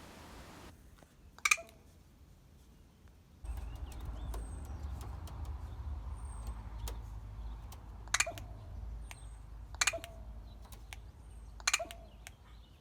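Hooded crow giving four short, sharp calls, the first the loudest and the other three close together near the end, while small birds chirp faintly and high in the background. A low, steady outdoor rumble sets in suddenly about three seconds in.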